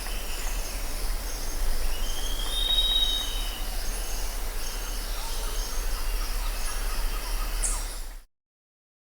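Jungle ambience: a steady chorus of insects buzzing in high bands, with a bird call rising and then holding about three seconds in, over a low steady hum. The whole soundscape cuts off abruptly about eight seconds in.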